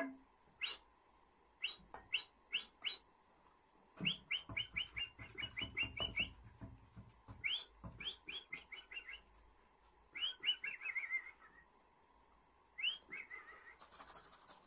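High, bird-like whistled chirps, each one rising. They come singly and in quick runs of up to about ten, with pauses between: the spirit whistling (imilozi) through which the 'boys of the spirit' are said to speak. Near the end comes a brief shake of a gourd rattle.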